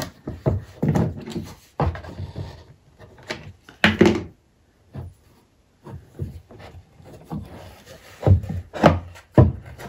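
Handling noise at a workbench: a wooden cutting board bumping and knocking on the bench top while cotton fabric is pulled tight around its edge and rustles. The knocks are irregular, with a sharper one about four seconds in and several more near the end as the board is lifted.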